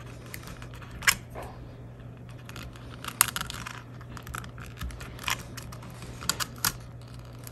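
Scattered sharp clicks and brief rustling as a plastic thermostat wall plate is handled and its thermostat wires are pulled back through the plate's opening.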